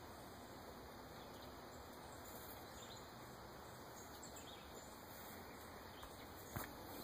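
Near silence: faint outdoor background hiss, with one short sharp click near the end.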